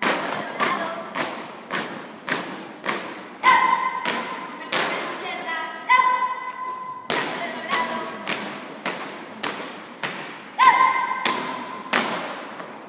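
Marching feet of a school flag escort squad stomping in unison on concrete, a steady beat of just under two steps a second. A few drawn-out, high-pitched shouted calls sound over the steps, about a third of the way in, midway and near the end.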